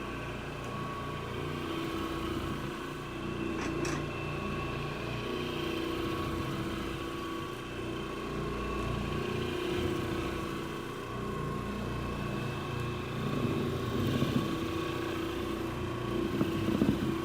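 Electric carpet-agitation machine running steadily as it scrubs encapsulation solution into the carpet: a continuous motor hum with a few small swells in level.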